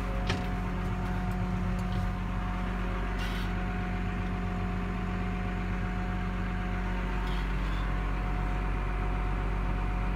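1999 Case MX170 tractor's diesel engine idling steadily at about 950 rpm, heard from inside the cab, with a few light clicks scattered through.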